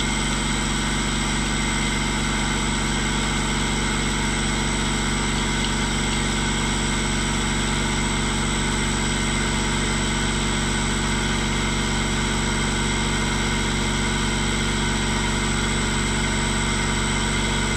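Bridgeport milling machine running steadily, a constant motor hum made of several steady tones at an unchanging speed.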